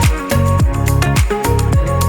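Background music with a steady beat of deep kick drums, about two a second, under a melodic line.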